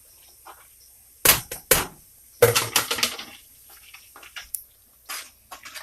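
Utensils knocking and scraping against a cooking pot while dry spices are mixed into melted butter: a few sharp clacks about a second in, a rapid cluster of clatter just after, then lighter scattered taps.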